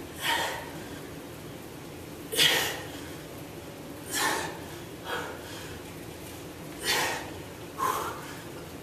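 A man breathing hard through a set of dumbbell deadlifts: six short, sharp breaths one to two seconds apart, the loudest about two and a half seconds in. He is out of breath from the exertion.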